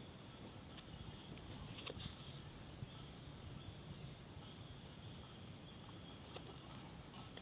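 Quiet outdoor ambience: a bird gives a short, high two-note call about every two seconds over a faint steady high hiss, with a few light clicks of the drone's plastic shell and battery plug being handled.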